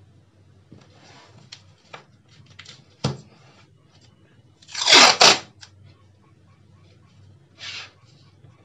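Paper masking tape being pulled off its roll and torn, with a loud double ripping sound about five seconds in and a shorter rip near the end, plus rustling of the paper and tape and a single knock on the table about three seconds in.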